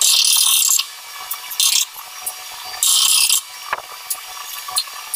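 Ratchet wrench clicking in three quick runs, with pauses between, as a bolt on a ceiling projector mount is tightened.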